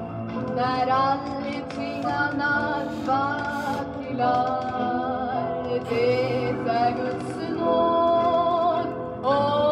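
A woman singing a song in Swedish on a 1966 record, with long held notes and vibrato.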